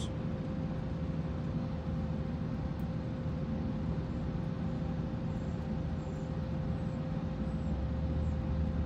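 Steady low mechanical hum with a faint constant tone. No spray is heard.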